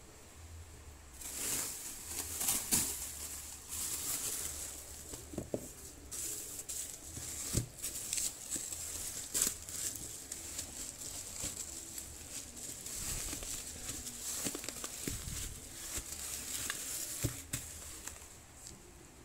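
Plastic bubble wrap crinkling and rustling as it is folded and pressed around a cardboard tablet box, with many small crackles and clicks. It starts about a second in and dies down near the end.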